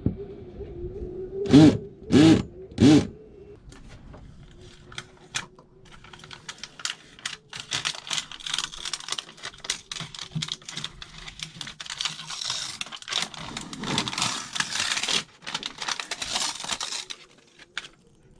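Three loud knocks about a second and a half in, then a long run of rapid clicking and scratching: screws being hammered and driven into a new Vetus boat hatch's frame.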